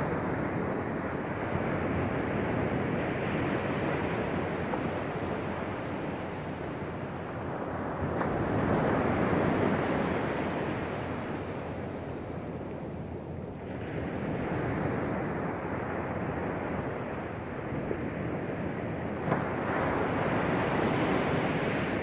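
Small sea waves breaking and washing up a sandy beach: a continuous surf wash that swells about every five or six seconds as each wave comes in. A single short click sounds near the end.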